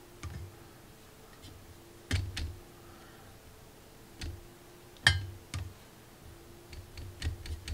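A paintbrush tapping and clicking against a watercolour palette while mixing paint: scattered light taps, a few single ones, then a quick run of them near the end, over a faint steady hum.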